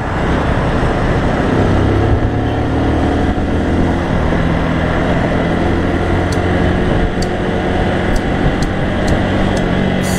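Bajaj Boxer BM 150's single-cylinder four-stroke engine running as the motorcycle rides along, its pitch rising in the first few seconds as it speeds up, with steady wind and road noise on the mounted microphone.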